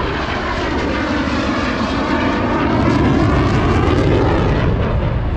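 F-16 Fighting Falcon's jet engine passing overhead: a loud, continuous jet roar that swells slightly toward the middle, with sweeping, swirling tones running through it.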